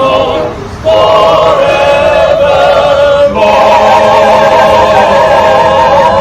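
Church choir with a male lead voice singing the closing held notes of a song: a short phrase, then one long note with vibrato, held for about four seconds.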